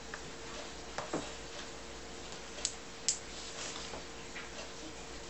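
Hands working soft soap clay on a silicone mat: a few light, irregular clicks and taps over a faint steady hum.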